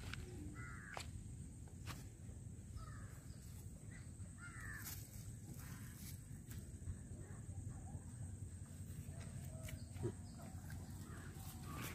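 Crows cawing a few times at a distance over faint open-air background rumble, with a few light clicks.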